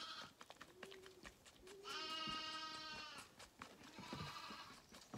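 Lamb bleating three times: a short call at the start, a long one of about a second in the middle, and a shorter one about four seconds in.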